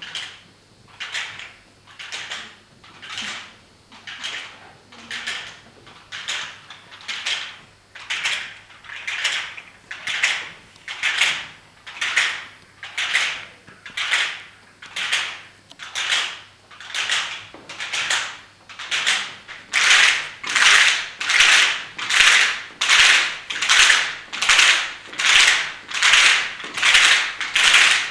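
Bundles of long thin wooden slats swung rhythmically through the air, a rattling swish about once a second. The swishes grow louder about two-thirds of the way in.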